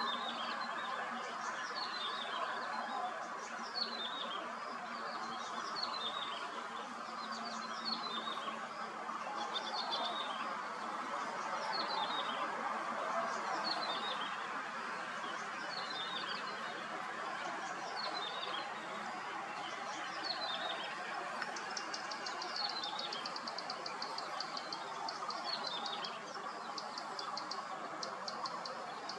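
Wild birds calling over a steady outdoor hum. One high, downslurred call repeats about every second and a half, and a fast, high trill joins about two-thirds of the way through.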